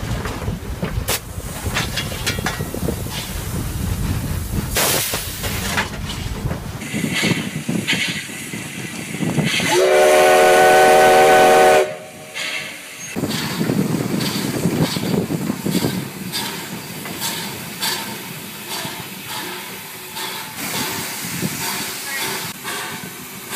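Inside a steam locomotive's cab: a steady hiss of steam with the rattle of the running engine. About ten seconds in, the steam whistle is blown once for about two seconds, a chord of several notes, the loudest sound.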